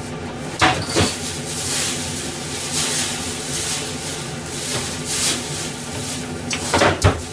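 Kitchen clatter: two sharp knocks about a second in and two more near the end, over a steady hum.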